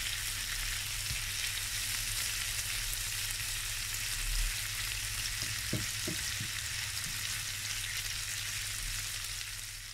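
Raw prawns, garlic and strips of red and green pepper sizzling in oil in a frying pan while being stirred with a silicone spatula, with a few light knocks a little past the middle. The sizzle fades out at the very end.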